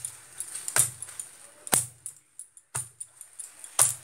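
Hands slapping and crushing a paratha on a stone counter about once a second, each stroke a dull thump with the wearer's bangles jingling.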